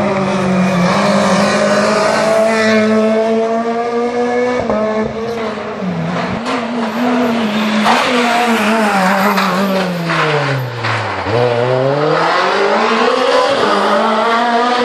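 Rally car engine running hard at high revs, holding a steady note, with a few sharp cracks. About eight seconds in the revs fall away steeply for a couple of seconds, then climb again as the car accelerates.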